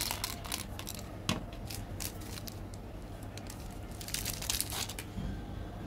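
Small hard-coated chocolate candies clicking as they are fed into a plastic candy tube, then a chocolate wafer's wrapper crinkling in the hands about four seconds in.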